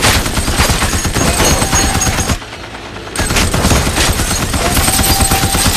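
Automatic sentry machine gun firing long rapid-fire bursts. It breaks off for under a second about two and a half seconds in, then fires again.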